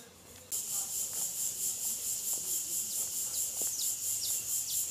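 Loud, high-pitched insect chorus, a rapidly pulsing shrill buzz typical of cicadas or crickets, starting abruptly about half a second in. A few short falling chirps sound over it.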